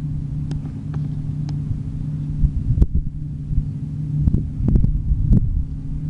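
New Holland CX8070 combine harvester running while cutting barley: a steady low drone with a held hum. A few sharp clicks sound over it.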